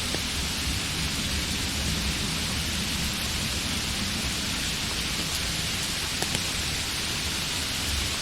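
Steady rain falling, an even hiss with a low rumble underneath and a few faint drop ticks.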